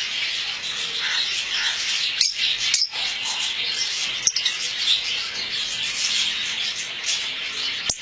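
A colony of lovebirds chattering in a dense, unbroken stream of high chirps, with a few sharp clicks among them.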